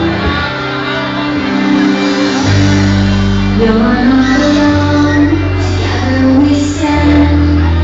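A song playing, with a female voice singing over held bass notes.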